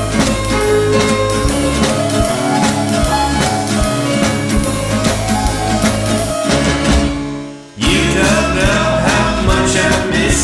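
Indie rock band music with drums and guitar, an instrumental passage without vocals. About seven seconds in it drops away briefly, then the full band comes back in.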